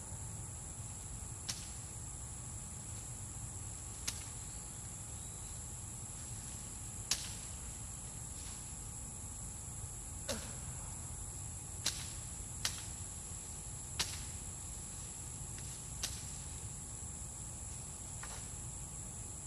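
Machete chopping through dry corn stalks: about nine sharp cracks at uneven intervals of one to three seconds. Crickets or other insects trill steadily over a low rumble.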